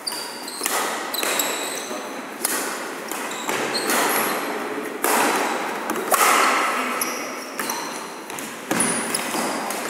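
Badminton rally: rackets strike the shuttlecock in sharp cracks about once a second, while players' shoes squeak on the wooden court.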